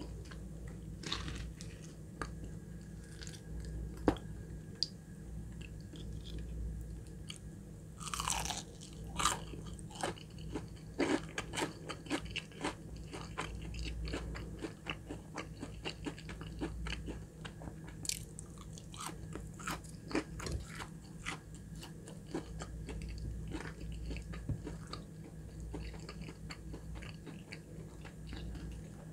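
Close-miked biting and chewing of crispy Popeyes fried chicken nuggets, the breading crackling in many short sharp crunches, densest about a third of the way in, with softer chewing between.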